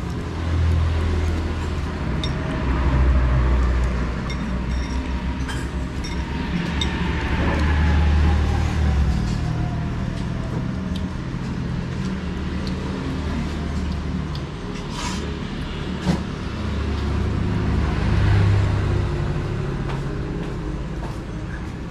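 Road traffic passing close by: a low engine rumble that swells and fades as vehicles go past, one with a slowly falling pitch. Short clinks of spoons and glasses come over it.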